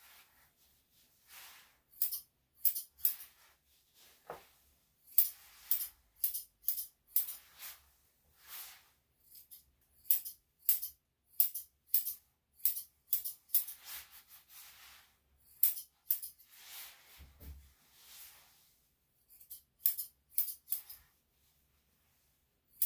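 Grooming scissors snipping through a Yorkshire Terrier/Pomeranian cross's fur: sharp metallic snips in quick runs of two or three, with short pauses between runs.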